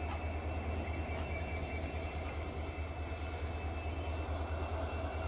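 Diesel locomotive of a container freight train running steadily: a constant low engine rumble with a thin steady high whine above it.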